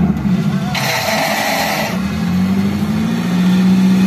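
Off-road side-by-side buggy's engine running at steady revs in a mud pit. A burst of rushing noise lasts about a second, starting just under a second in.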